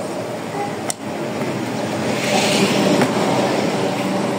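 Roadside traffic noise that swells in the middle as a vehicle passes, with one sharp click about a second in.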